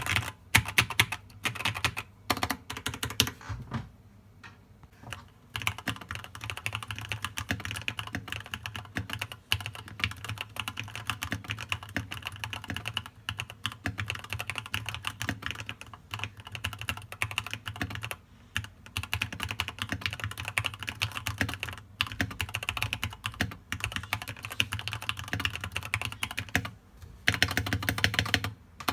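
Fast continuous typing on a keyboard, with dense key clicks that pause for about two seconds near the start.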